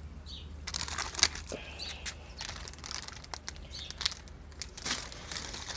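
A clear plastic bag crinkling and rustling as it is handled close to the microphone, in a run of irregular crackles. Faint bird chirps sound now and then behind it.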